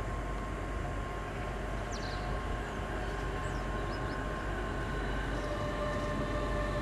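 CFL class 4000 Bombardier electric locomotive approaching with its train of double-deck coaches: a steady rumble carrying a few thin, steady whining tones, growing slightly louder as it comes closer.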